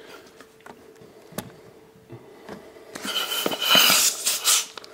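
Hand balloon pump inflating a transparent balloon. After a quiet stretch with a few faint clicks, air rushes loudly from the pump into the balloon from about three seconds in.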